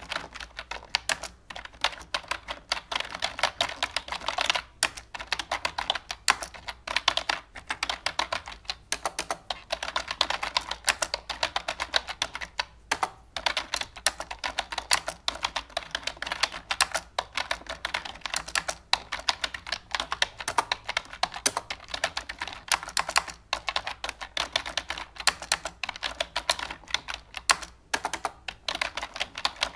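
Fast, irregular clicking that keeps going with only a few brief pauses, like rapid typing on a keyboard.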